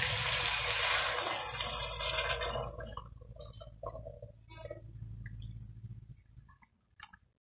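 Boiling water poured from a stainless steel pot into a pot of frying chicken and sofrito: a loud hiss for the first two to three seconds that dies away, then faint trickling and scattered drips.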